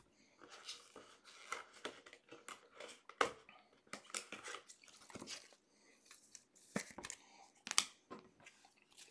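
Trading cards in plastic sleeves being handled and set down on a table: faint scattered rustles, clicks and taps, the sharpest about three seconds in and again a little before the end.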